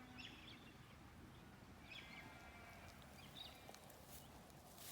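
Faint wild birds calling in the distance: a few short chirps about every second or two over quiet outdoor ambience.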